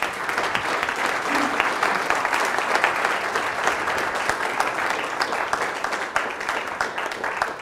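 Audience applauding: many hands clapping in a dense, steady patter that begins to thin out near the end.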